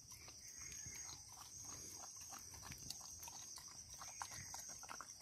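A dog eating a wet chicken, egg and rice mash off the ground: faint, irregular smacking and lapping clicks. A steady high-pitched drone runs behind it.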